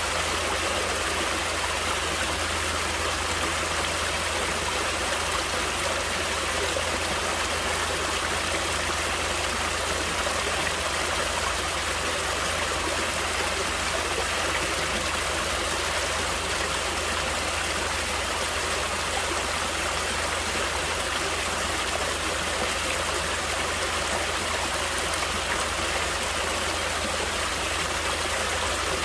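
Water of a stream flowing and splashing in a steady, unbroken rush.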